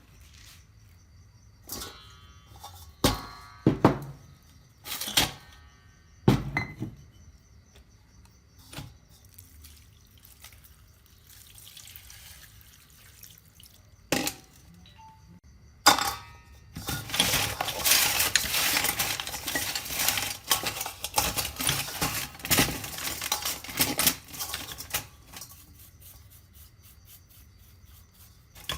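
Metal parts being handled: separate sharp clinks and knocks for the first half, then about eight seconds of dense rattling clatter from a little past the middle.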